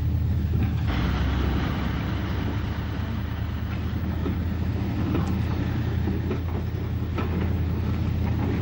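A train running along the rails: a steady low rumble with a few sharp rail clicks.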